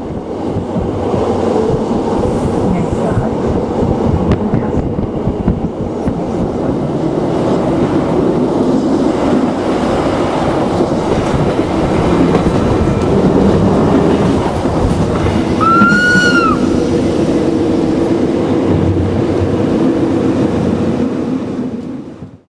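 A metre-gauge Rhaetian Railway train running on the rails: a steady rumble of wheels and running gear that fades out near the end, with one short squeal, rising then falling, about two-thirds of the way through.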